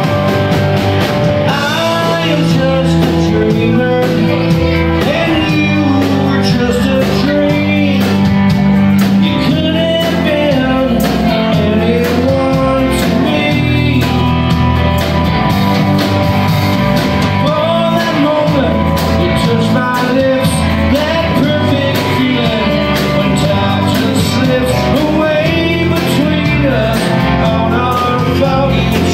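Live rock band playing loud and without a break: electric guitars and drums, with a wavering, bending lead melody over steady low chords.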